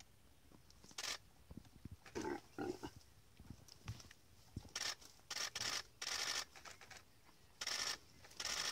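Short raspy animal noises, about a dozen in irregular succession with quiet between them, from an impala being attacked and dragged by a hyena.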